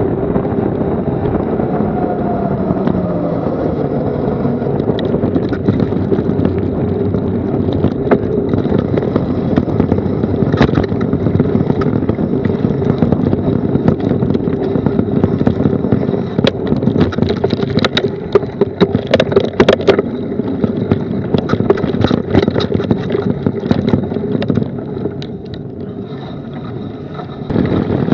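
Mountain bike ridden downhill, heard from a camera on the bike or rider: steady wind rush and tyre noise, with many sharp knocks and rattles of the bike over rough singletrack, thickest in the second half. It quietens near the end as the bike slows.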